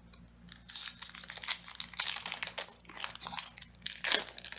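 A Pokémon booster pack's foil wrapper being handled and torn open: a dense run of rustling and sharp little clicks starting about a second in.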